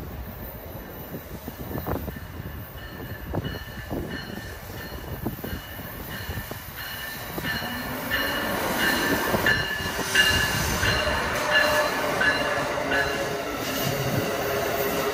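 An Amtrak passenger train running through the station, its rumble growing louder from about eight seconds in, with steel wheels squealing on the rails in short high-pitched bursts.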